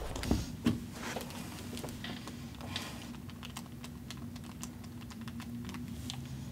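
Buttons on a mobile phone's keypad clicking as a number is dialled, in quick irregular taps. A couple of louder knocks come in the first second, and a faint steady hum runs underneath.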